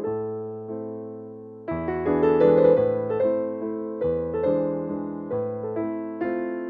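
Background piano music: gentle chords, each struck and fading, changing about once a second.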